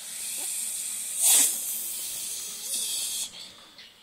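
A long hiss, with a sharp, much louder burst about a second in and another surge near three seconds, breaking off shortly before the end.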